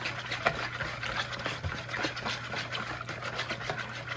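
Wire whisk beating a soy-and-hoisin sauce in a bowl, rapid irregular strokes clicking and sloshing while the brown sugar dissolves.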